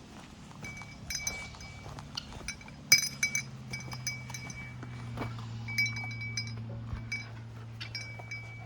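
Metal dog collar tags clinking and jingling in quick, irregular runs as the dogs move about and eat treats. A low steady drone runs underneath from about two seconds in.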